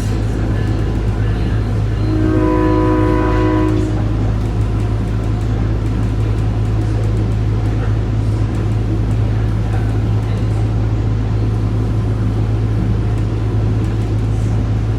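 SMART diesel commuter train running, heard from on board as a steady low rumble. About two seconds in, the train's horn sounds once in a chord of steady tones for nearly two seconds.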